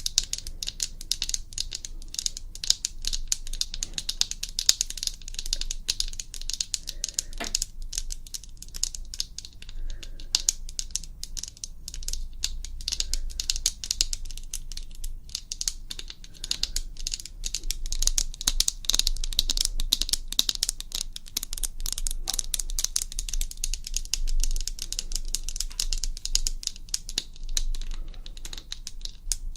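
Rapid, continuous ASMR tapping: a dense run of small, sharp clicks that never pauses.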